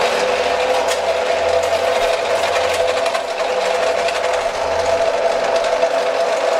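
Benchtop laboratory jaw crusher with ceramic jaws running, crushing friable graphite ore. A steady two-note motor hum sits over a constant fine rattle.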